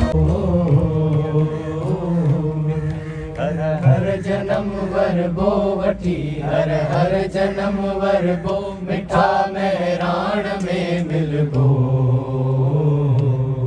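Live music: a voice singing in a slow, chant-like style over a steady low drone.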